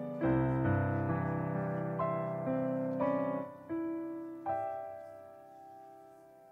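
Slow, gentle piano music: chords and single notes struck one after another, each dying away, the last one about four and a half seconds in left to ring and fade.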